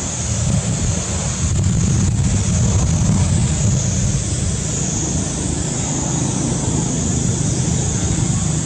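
Steady outdoor background noise: a low rumble under a constant high hiss, with no distinct events.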